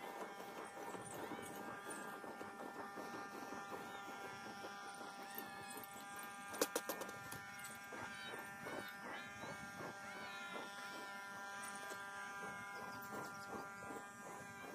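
Faint kitten meows over a steady multi-tone buzz, with a quick cluster of sharp clicks about six and a half seconds in.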